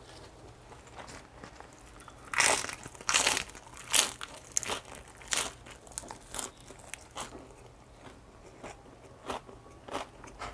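Bites and chewing of a raw lettuce leaf wrapped around sambal, close to a clip-on microphone. After a quiet start, three loud crunches come about two and a half to four seconds in, then softer chewing crunches about once or twice a second.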